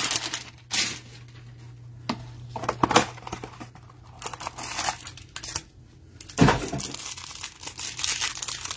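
A hanger box of trading cards being torn open by hand, with cardboard tearing and the plastic wrapper crinkling in irregular bursts, the loudest about six and a half seconds in.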